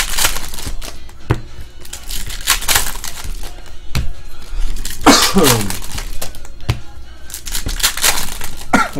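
Foil trading-card pack wrappers being torn open and crinkled by hand, with cards riffled between packs: a run of sharp, irregular crackles and rustling tears.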